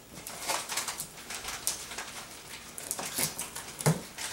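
Pocket knife slitting and scraping along a cardboard box's taped seam: a run of short scratchy rasps, with a louder knock a little under four seconds in.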